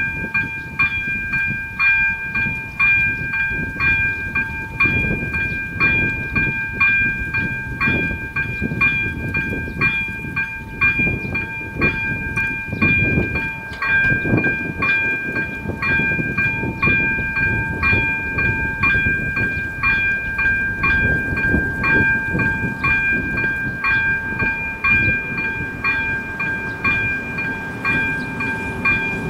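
Electric level-crossing warning bell (ZV-02 on AŽD 97 warning lights) ringing steadily at about two strikes a second, each strike ringing on at several pitches. It signals a train approaching while the barriers lower. A low rumbling noise runs underneath.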